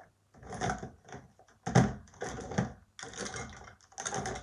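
Bundles of makeup brushes clattering together in several short bursts as they are handled and dropped into a pillowcase.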